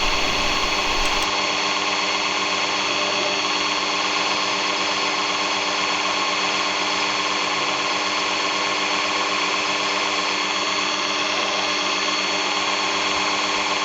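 Small electric drill running continuously with a 2.35 mm bit, boring out the pivot hole of a Victorinox 58 mm classic scissors blade; a steady whine with several fixed tones over a constant hiss, the bit slow to cut through the hard steel.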